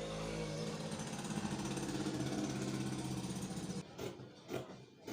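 A small engine runs steadily and cuts off abruptly about four seconds in. It is followed by sharp snips, about two a second, from scissors cutting along the drafted diagonal.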